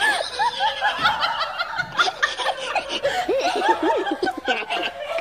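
Several people laughing: short, quick rising-and-falling bursts from more than one voice, overlapping throughout.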